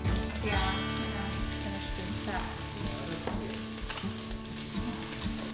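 Sliced bell peppers and red onion sizzling as they fry in a pan, with occasional clicks of metal tongs against the pan and a metal tray.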